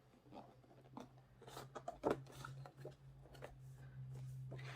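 Light rustles, scrapes and taps of a paper sleeve and cardboard box being handled and turned over, over a steady low hum.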